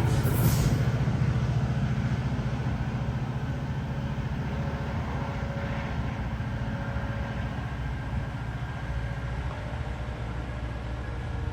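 GO Transit commuter train rolling away on departure: a low rumble of wheels and cars that fades gradually as it pulls off, with a brief hiss right at the start.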